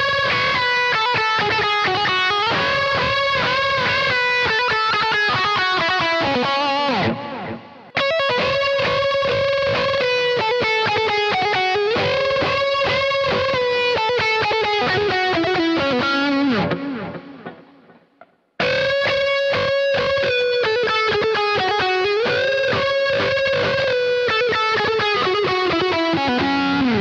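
Squier Thinline Telecaster played through a Boss GT-100 on a high-gain lead tone: distorted lead guitar with long sustained, bent and vibrato notes. It plays three phrases, each ending in a falling run, with short breaks about seven and seventeen seconds in.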